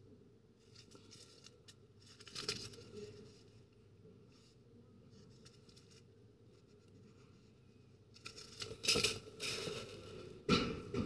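Foil blister strip of capsules handled in gloved fingers: soft crinkling and rustling of the foil with small clicks, louder rustling over the last few seconds and a sharp tap near the end as the strip is set down.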